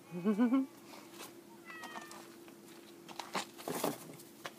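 An F2 jungle cat hybrid gives a short, warbling, trill-like meow at the start, then a brief, faint, high chirp about two seconds in. A few scuffing noises follow near the end.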